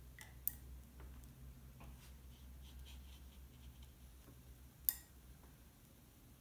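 Faint scratching of a watercolour brush dabbing and stroking on textured Not watercolour paper, over a low steady hum. Two sharp clicks stand out, one about half a second in and a louder one near five seconds.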